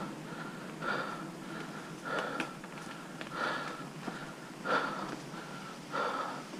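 Mountain biker's heavy breathing while pedalling, a loud breath about every second and a quarter, over the steady noise of the bike rolling along the dirt trail.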